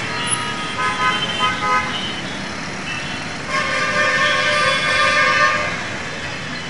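Busy intersection traffic with vehicle horns honking: a few short toots about a second in, then a long steady horn blast of about two seconds, over the running noise of motorbikes, auto-rickshaws and cars.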